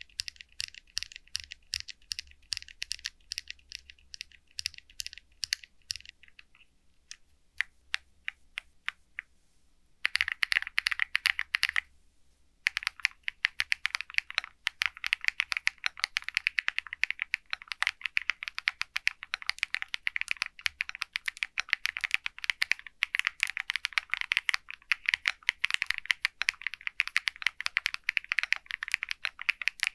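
Typing on an SPM AL66A full-aluminium 66-key mechanical keyboard with high-PBT keycaps: a fast stream of key clacks. The keystrokes thin out and go quieter from about six to ten seconds in, then come back louder and denser, with a brief pause a couple of seconds later.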